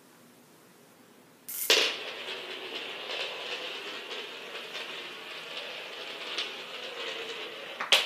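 A Gauss rifle firing: a sharp click as the magnets snap the steel ball bearing out. The ball then rattles and rolls across a hard surface for about six seconds with small ticks and stops with another sharp knock.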